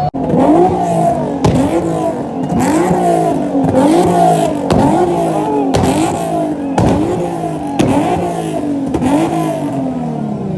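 A car engine revved over and over, about once a second: each rev climbs in pitch, then drops off sharply before the next.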